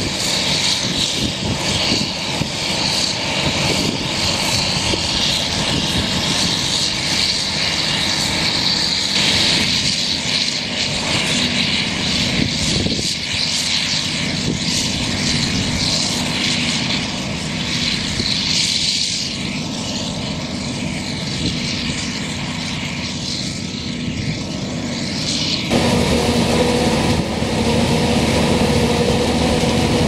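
A self-propelled forage harvester, the Claas Jaguar 980, running at work, chopping standing corn and blowing silage through its spout into a trailer: a steady dense drone with a high hiss. About 26 seconds in the sound becomes louder and closer, with a steady engine hum, as the harvester and the tractor running beside it are heard from nearby.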